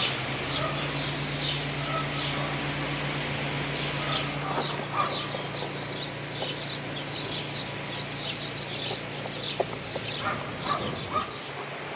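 Small birds chirping over and over in quick short calls, with a steady low hum under the first few seconds and a few sharp clicks near the end.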